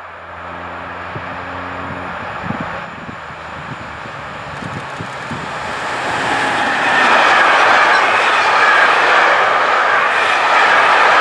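An electric freight train, a Siemens Vectron locomotive hauling empty stake wagons for timber, approaches and passes close by. It grows steadily louder, and from about seven seconds in the wagons' wheels on the rails make a loud, steady rolling rumble and rattle.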